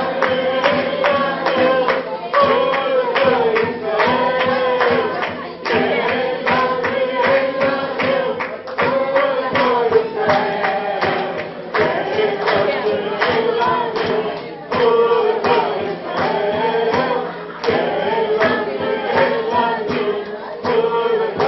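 A group of people singing a lively song together over a quick, steady beat of sharp strokes.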